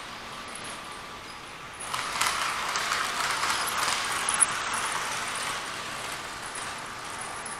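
Model train running on the layout's track: a rushing rumble of wheels and motor that swells from about two seconds in and eases off after about five, with a few sharp clicks.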